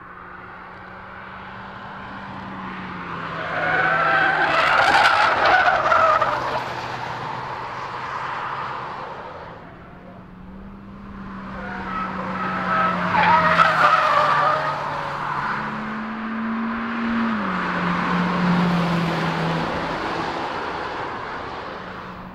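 Camouflaged Hyundai i30 prototype driven hard on a race track. The engine note steps up and down as it changes gear, and the tyres squeal loudly through the corners twice, about four seconds in and again about twelve seconds in.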